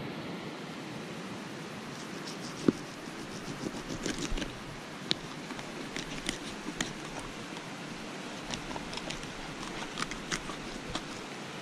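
Knife filleting a smallmouth bass on a cutting board: scattered small clicks and scrapes as the blade works along the bones, with one sharper knock a little under three seconds in, over a steady outdoor hiss.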